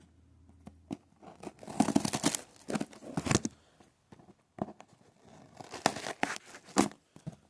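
Toy packaging being torn open and crinkled by hand, in two bouts of ripping and rustling.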